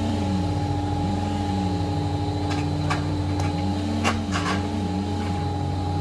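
Engines of a compact track loader and a wood chipper running steadily, a low drone with a hum whose pitch wavers up and down. A few sharp clacks come about halfway through.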